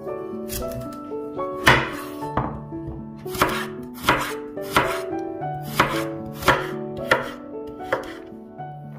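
Kitchen knife chopping a carrot into thin slices on a wooden cutting board: about nine crisp chops, roughly one every two-thirds of a second, starting near two seconds in.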